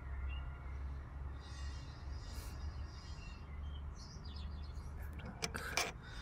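A few sharp metallic clicks near the end as the shock absorber's upper mount nut is worked off its stud by hand. They sit over a low steady rumble and faint high chirping.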